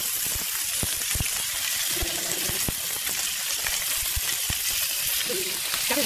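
Pieces of hairtail fish frying in oil in a pan: a steady sizzle with scattered sharp pops of spitting oil.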